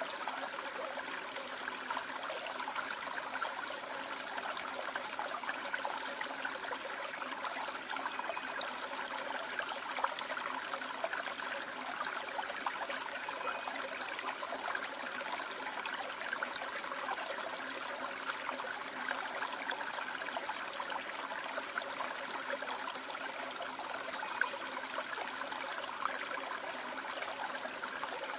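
Water of a rocky river gorge running over and between stones: a steady, unbroken splashing rush.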